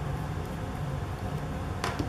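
Steady low background hum in the room, with one short tap near the end.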